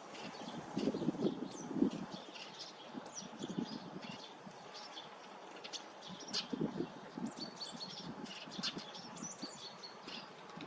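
Sparrows chirping: many short, high chirps overlapping throughout, with scattered low, muffled thuds, the loudest in the first two seconds.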